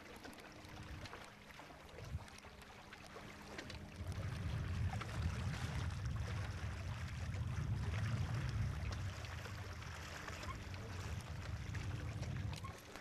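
A Prindle 18 catamaran under sail, its hulls rushing and splashing through the water. Wind buffets the microphone as a low rumble that swells about four seconds in and drops away just before the end.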